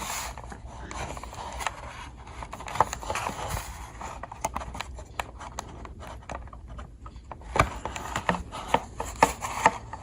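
Small metal clicks and scraping from a Gordon 20-in-1 multi-tool being handled, as a folding tool is worked out of its handle by the notch. The clicks are scattered and irregular, with a few louder ones near the end.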